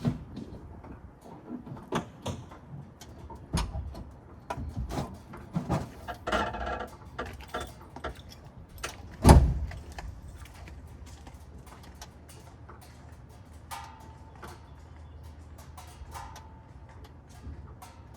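Scattered clicks and knocks, with one loud thump about nine seconds in, then a faint low steady hum.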